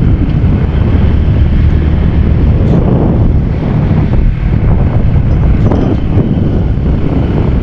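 Wind buffeting the microphone over the steady low rumble of a moving road vehicle.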